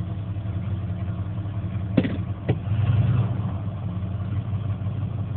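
Ford 302 V8 of a 1980 F-100 pickup idling, heard from inside the cab, pretty rattly still after carbon-cleaning treatments. Two sharp clicks come about two seconds in, and the engine sound briefly swells around three seconds in.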